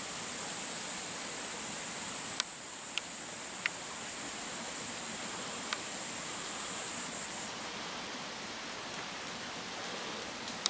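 Steady hiss of wet forest ambience with a thin, high, steady whine that stops about seven and a half seconds in. A few sharp clicks sound between about two and six seconds in, the loudest first.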